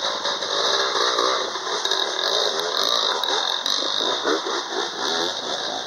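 Dirt bike engine revving, its pitch rising and falling repeatedly as the bike rides up a shallow stream, over a steady hiss.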